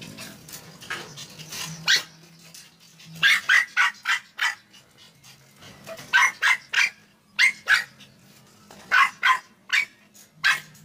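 American Eskimo dog barking in quick runs of short, high barks, three to five at a time, with pauses between the runs.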